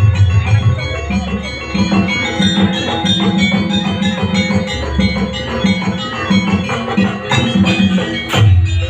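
Live jaranan dance accompaniment: a gamelan-style ensemble of ringing tuned metal percussion over a steady low drum beat.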